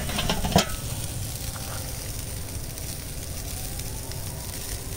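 Hamburger patties sizzling on the grate of a Weber Master-Touch charcoal kettle grill, a steady hiss, with a short clatter from the grill lid being lifted in the first half-second.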